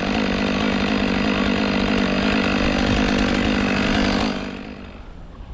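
Chainsaw running steadily at high revs, then dropping away about four seconds in.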